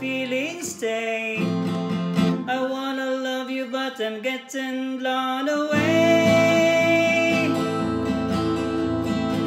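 Music: an instrumental guitar passage with long held notes, some bending in pitch, over sustained chords.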